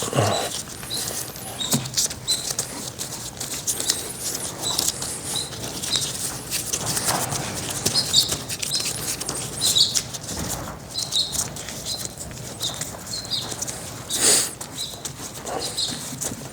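Irregular metal clicks, taps and knocks of hand tools working on a hydraulic slewing cylinder's rod and gland, with one louder knock about 14 seconds in.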